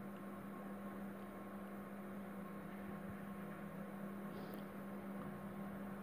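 Steady electrical hum with a low hiss underneath: the background noise of the recording setup, with nothing else happening.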